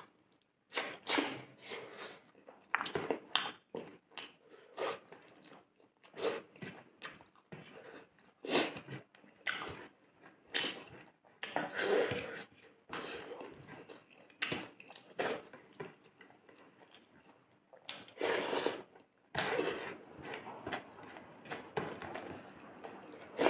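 Eating sounds: wet chewing and lip smacking of rice and fish curry eaten by hand, as many short, irregular smacks and clicks, with fingers mixing and scraping rice on a paper plate.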